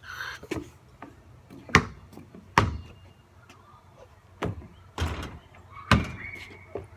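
A basketball thudding about six times at uneven intervals, loudest in the first few seconds.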